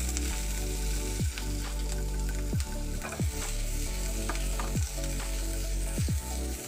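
Green capsicum (bell pepper) strips sautéing in a little oil in a wok: a steady sizzle, with a spatula stirring and scraping against the pan in scattered clicks.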